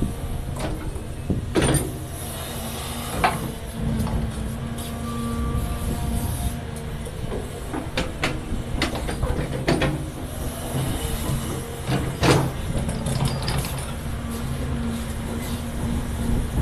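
Caterpillar 336 Next Gen hydraulic excavator's diesel engine running steadily under digging load, while the steel bucket scrapes through clay and rock, with a handful of sharp knocks and clanks as it strikes stone.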